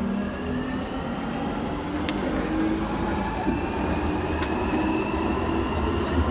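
London Underground Jubilee line train (1996 Stock) running through a tunnel, heard from inside the carriage: a steady rumble of wheels on rail with a whine slowly rising in pitch, and a couple of sharp clicks.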